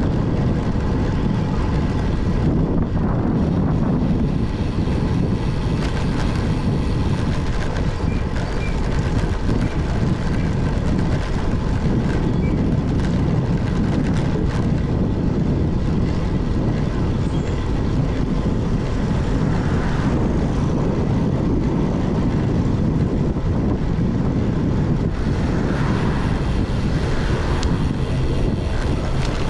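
Steady wind rush on a GoPro's microphone while riding a road bicycle, a constant low rumble with no break.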